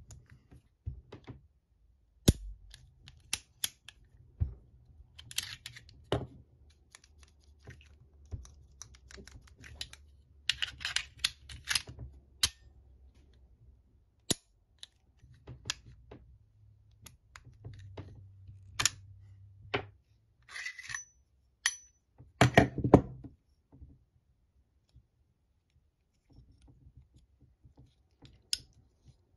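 Steel parts of a French Modèle 1935A pistol clicking and clacking as it is handled and field-stripped, the slide coming off the frame. The clicks come in irregular runs, with a louder cluster of clacks about 23 seconds in.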